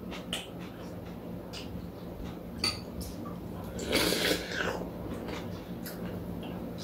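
Metal spoons and chopsticks clicking lightly against bowls as two people eat cold soup, with a short noisy slurp of soup from a spoon about four seconds in.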